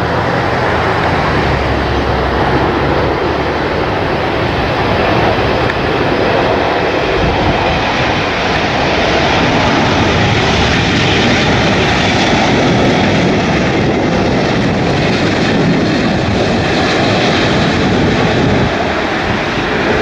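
Boeing 777 jet airliner's engines running as it comes in to land, a loud, steady jet noise, with strong gusty wind buffeting the microphone.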